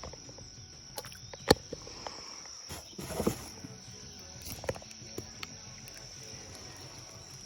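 Steady high-pitched drone of insects, with a few sharp clicks and knocks, the loudest about a second and a half in, and a brief rustle a little after three seconds.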